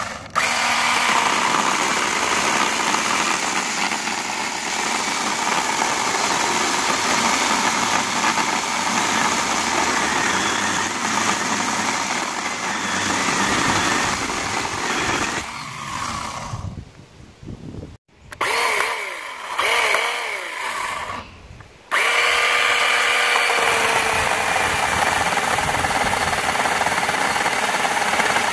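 Scott's 24-volt cordless electric chainsaw running under load as its chain cuts into wood. About two-thirds of the way through it dies down and gives a few short revs up and down, then runs steadily again to cut a block of wood.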